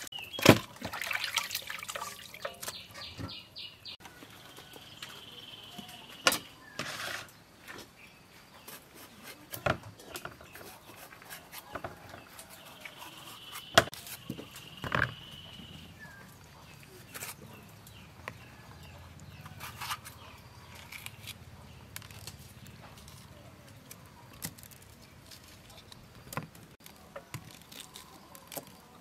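Water splashing and dripping for the first few seconds as fish are lifted and rinsed in a bowl of salted water. Then scattered light knocks and taps as red peppers are seeded and dropped into a plastic bowl, with a bird calling faintly twice.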